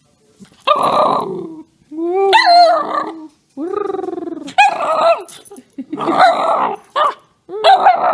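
Miniature schnauzer 'talking': a string of about six growly barks and yowling calls with short gaps between them, some bending up and down in pitch.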